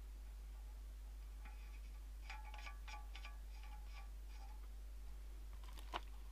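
Faint clicks with a light metallic ring as parts of a microscope's metal pillar stand are fitted and turned by hand, with a sharper click near the end.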